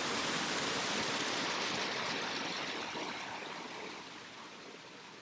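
Rushing water of a mountain creek, a steady rush that fades gradually over the second half.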